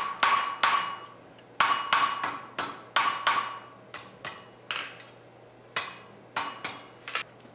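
Blacksmith's hammer striking hot iron stock on an anvil's hot-cut hardy to cut the end off, about seventeen blows in uneven pairs and runs, each ringing briefly. The blows grow fainter and further apart toward the end as the cut goes through.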